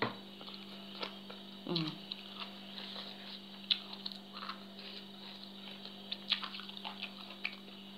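Wet chewing and mouth sounds of a person eating papaya salad by hand, with scattered small clicks from the mouth and from fingers picking through the plate, and a brief hum of voice about two seconds in. A steady low hum sits underneath.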